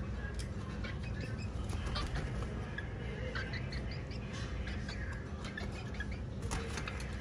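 Small birds chirping in short, scattered calls over a steady low rumble, with a few brief rustles or clicks.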